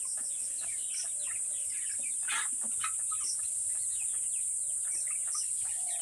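A flock of young Black Australorp chickens, about 45 days old, peeping and clucking: many short calls overlapping, over a steady high-pitched hiss.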